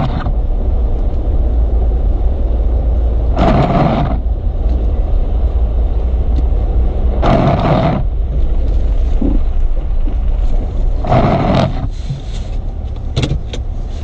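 Motor vehicle's steady low rumble, with a short rushing sound that recurs about every four seconds. The rumble eases near the end, where a few sharp clicks follow.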